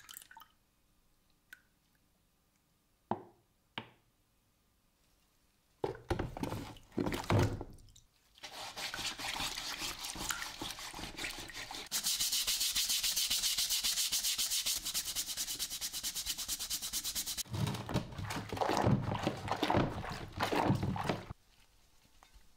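A brush scrubbing a rusty cast-iron pulley bracket in a tub of soapy water, with water sloshing and dripping. After a few faint taps it starts with sloshing, turns into fast, even scrubbing strokes for about five seconds in the middle, then rougher scrubbing and sloshing that stops shortly before the end.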